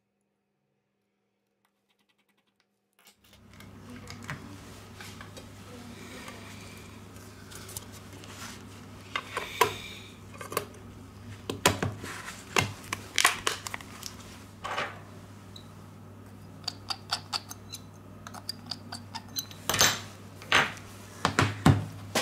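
Near silence for about three seconds. Then come scattered sharp clicks and taps of plastic and metal phone parts being handled and pressed together as the smartphone's back cover is fitted and pressed into place, over a steady low hum.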